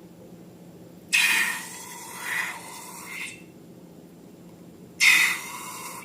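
Slime being squeezed and worked by hand: a burst of squelching noise starting suddenly about a second in and swelling twice more before fading, then another sudden burst near the end.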